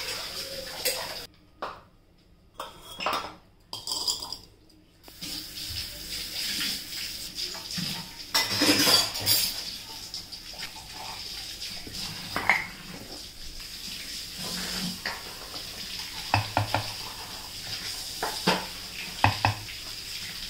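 Clay pot and its clay lid knocking and scraping against a steel vessel as they are handled, then a wooden spatula scraping and tapping in the clay pot as the cooked rice is turned. The loudest scrape comes about nine seconds in, and a faint steady high hiss runs underneath.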